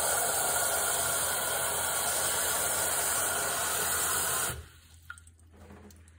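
Kitchen faucet on its shower-spray setting running into a steel saucepan, filling it with water. The spray is shut off suddenly about four and a half seconds in, leaving a thin trickle and small splashes in the pan.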